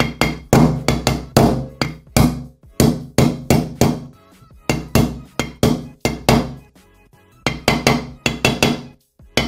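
Steel hammer striking a steel drift on the outer race of a crankshaft ball bearing, driving it into an aluminium paramotor crankcase in quick repeated metal blows, about two to three a second. After a short pause about seven seconds in, the last few blows ring sharper: the change in sound that tells the bearing has gone all the way down onto its seat.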